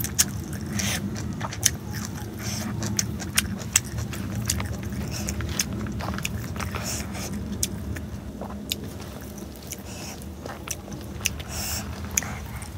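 Close-miked chewing and lip-smacking of a mouthful of rice and greens, with many short, sharp wet mouth clicks, over a steady low hum.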